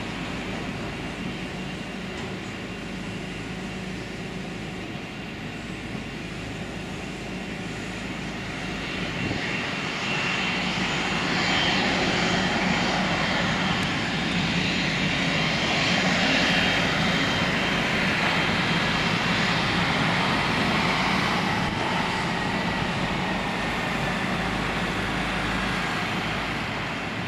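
Jet engine noise from a Cessna Citation Latitude's twin turbofans, a steady high whine over a broad rumble. It grows louder about ten seconds in, peaks midway, and eases off near the end.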